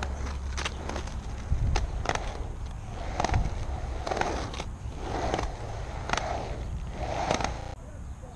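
Aggressive inline skate wheels rolling on a concrete bowl as the skater pumps up and down the walls, the rolling noise swelling about once a second, with scattered clicks and a low rumble. The sound drops off suddenly shortly before the end.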